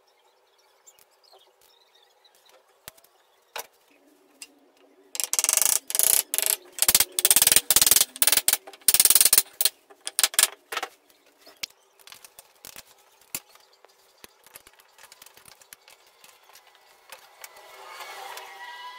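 A dense run of rapid, sharp clicks and knocks from about five to eleven seconds in, then scattered clicks, as a freshly glued, dowelled solid-wood table edge is fitted and clamped down.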